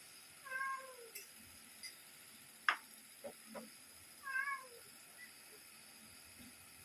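A cat meowing twice, two short falling calls a few seconds apart, with a few sharp clicks between them.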